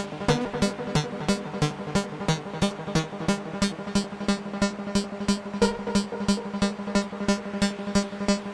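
AE Modular synthesizer playing electronic music: a held low drone under a fast, even train of clicking pulses, with a new higher note coming in a little past halfway.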